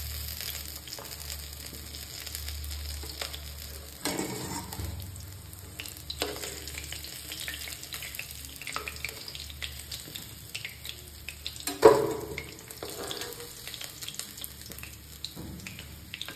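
Fish pieces sizzling in hot oil in a metal kadhai while a metal spatula scrapes and taps along the pan, lifting the fried pieces out. A scatter of small clicks runs through it, with one sharp knock about twelve seconds in.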